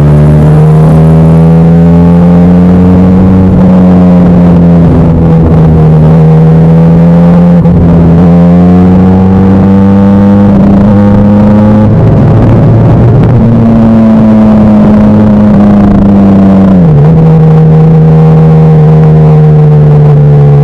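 QJ Benelli SRK 400 twin-cylinder engine, loud through a Yoshimura silencer and stainless bend pipe, running hard at high revs while riding. The pitch holds fairly steady with slow rises and falls, turns rougher for about a second around the middle, and dips sharply and picks up again near the end.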